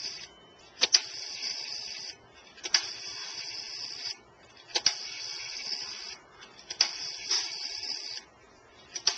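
Automatic Electric payphone's rotary dial being turned and let spin back, digit after digit: five times, about every two seconds, a click followed by a whirring, buzzing return lasting about a second and a half.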